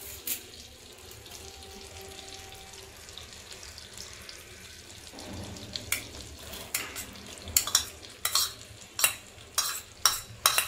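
Butter sizzling in a frying pan with curry leaves in it. About five seconds in, chopped onion is tipped in and the frying grows. A metal spoon then knocks and scrapes against the bowl and pan several times in sharp clicks.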